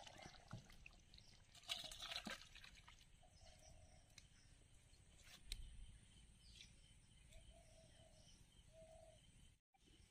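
Near silence: faint outdoor background, with one brief scraping, rustling noise about two seconds in and a few faint short tones later.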